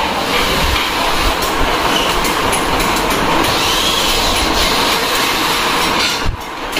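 Workshop machinery running: a loud, dense, steady clatter with faint squeals now and then, dipping briefly near the end.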